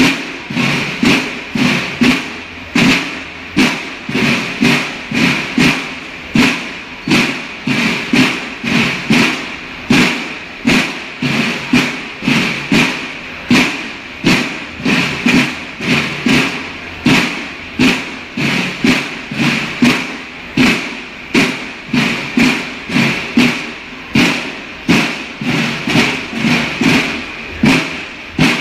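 Police banda de guerra, snare and bass drums with bugles, playing a ceremonial march on a steady drum beat of about one and a half strokes a second.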